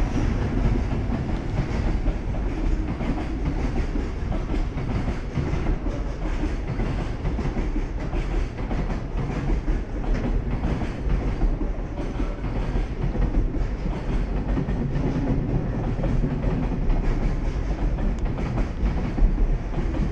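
Freight train running through: JR Freight EF210 electric locomotive passing, then a long string of container flat wagons. A steady rumble with the wheels clattering over the rail joints.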